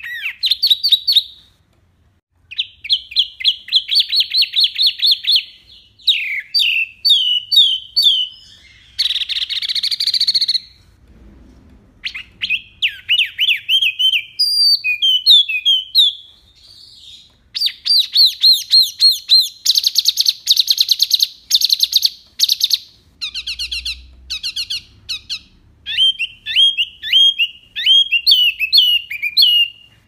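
Caged wambi singing a loud, varied song: phrases of rapid chirps, fast trills and sliding whistled notes, each a few seconds long, broken by short pauses about two seconds in and near the middle.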